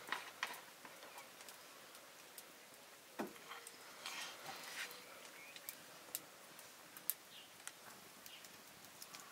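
Faint, scattered clicks and ticks over a low, steady background, with a slightly stronger knock about three seconds in.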